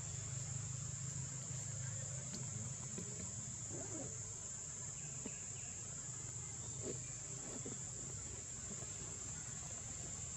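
Insects droning steadily at one high pitch, with a low hum underneath.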